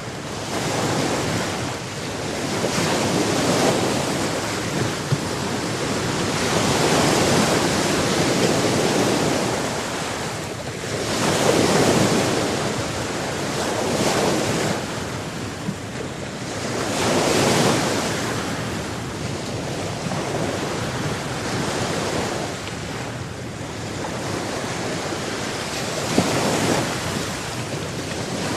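Ocean waves breaking and washing on a shore, swelling and falling back every few seconds, with some wind noise on the microphone.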